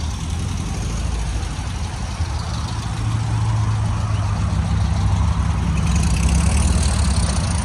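Air-cooled Volkswagen flat-four engines of Beetles and a Kombi pickup driving slowly past one after another: a steady low engine drone that grows louder about three seconds in, as a Beetle passes close.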